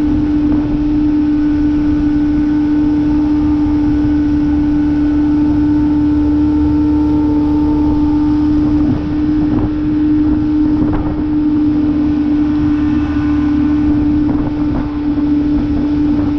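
Outboard motor of a small bass boat running steadily at speed, one unchanging engine note, with wind on the microphone.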